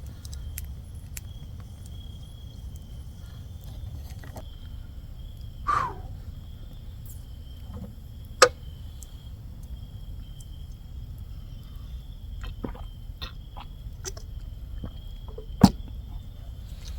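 Wood campfire burning with scattered small crackles and a few sharp pops over a low rumble.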